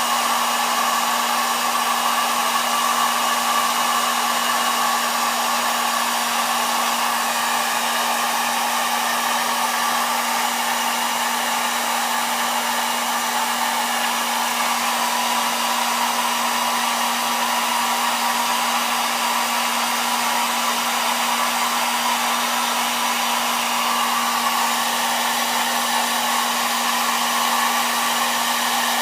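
Electric hot-air blower running steadily: a continuous rush of air with a steady low hum under it.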